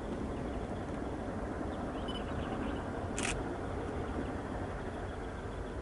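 Distant diesel-electric locomotives hauling a grain train, with an S class in the lead, giving a steady low rumble as they approach. A single brief click sounds about three seconds in.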